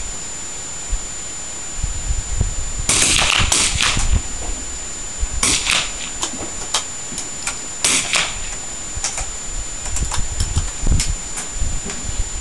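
Target rifles firing from the prone firing line: scattered sharp cracks at irregular intervals, with a few short bursts of hiss in between.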